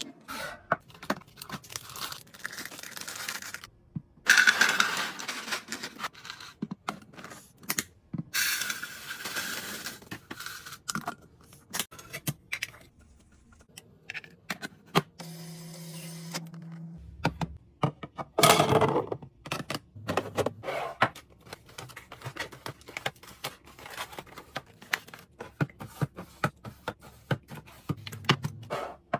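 Fridge-restocking handling sounds: many clicks and clacks of containers and packaging being set down and moved, with a few longer bursts of packaging being torn or crinkled.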